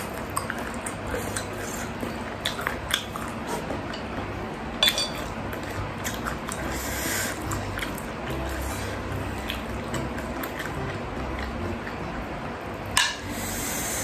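Metal spoon scooping broth and clinking against a bowl of spicy meatball soup, with a wooden fork working the meatball: small liquid sounds and scattered clinks, the sharpest about five seconds in and near the end. An electric fan runs steadily underneath.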